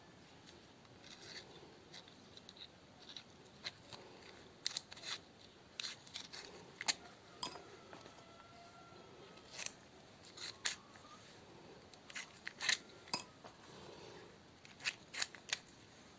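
Irregular sharp clicks and snips of small hand tools and metal parts being handled, loudest about halfway through and again near the end.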